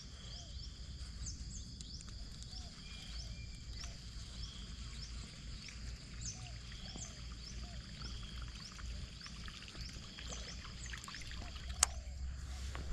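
Faint outdoor ambience: small birds chirping over and over above a steady high insect hum, with one sharp click near the end.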